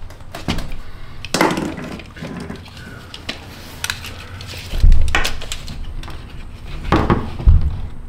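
Handling of a steel tape measure: the blade is pulled out and set against the wall, giving scattered clicks and rattles, with two dull thumps about five and seven and a half seconds in.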